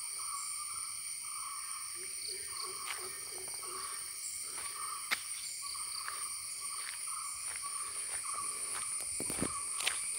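A steady insect chorus of several overlapping high-pitched drones, with a few sharp clicks, the loudest about halfway through and near the end.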